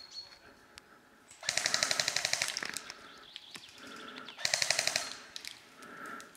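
Airsoft electric gun firing two full-auto bursts of rapid clicking shots, each about a second long, roughly three seconds apart.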